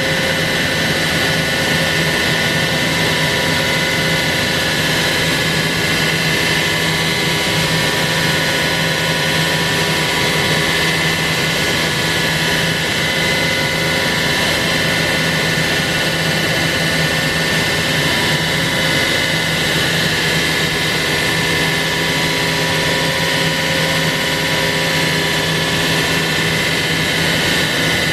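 CNC router spindle running steadily while milling a wooden guitar neck: a loud, unchanging high whine over a rushing noise.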